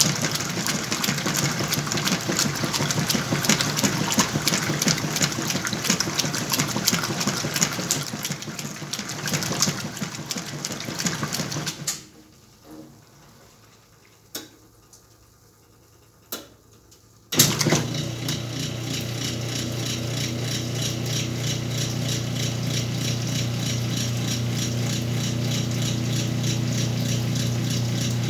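Whirlpool washing machine running its cycle: a churning, watery mechanical sound that stops suddenly about 12 seconds in. A few clicks follow during a short pause, then a steady motor hum starts abruptly about 17 seconds in and holds.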